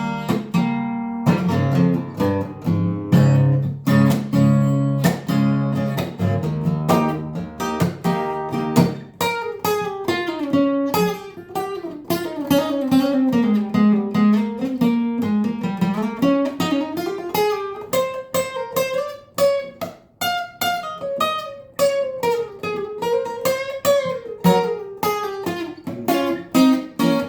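Acoustic guitar instrumental break on a guitar strung with only five strings: strummed chords for the first several seconds, then a picked single-note lead line winding up and down in pitch.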